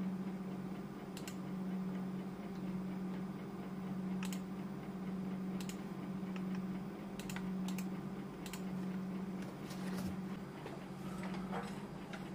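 Computer mouse clicking: single sharp clicks at irregular intervals, several closer together in the second half, over a steady low hum.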